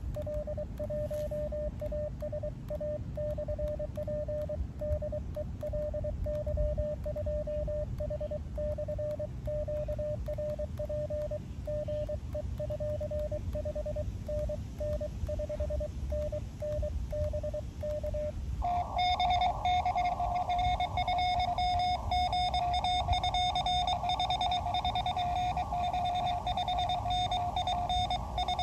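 Morse code (CW) from an Elecraft KX2 transceiver: a tone keyed on and off in dots and dashes, then, about two-thirds of the way through, a louder, slightly higher-pitched keyed tone takes over. These are the keyed exchanges of a CW contact, with a 559 signal report.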